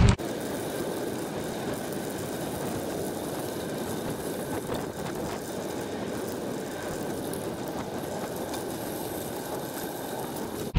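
Bicycle tyres rolling steadily over a crushed limestone gravel surface, an even crunching hiss with a few faint ticks.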